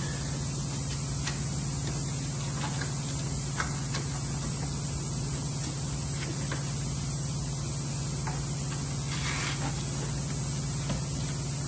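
Steady low hum with a hiss over it, and a few faint scattered clicks and rustles as wiring is pulled and guided through a pipe in the wall.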